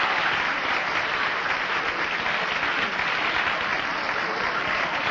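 A large banquet audience applauding steadily, a long sustained ovation after a comedian's routine.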